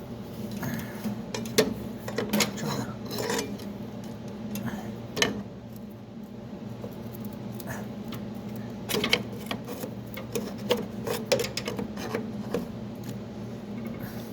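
A metal pry tool clicking and scraping against the plastic upper steering-column bearing of a GM G-body column as it is worked loose, in irregular taps and clinks, with a cluster of them late on. A steady low hum runs underneath.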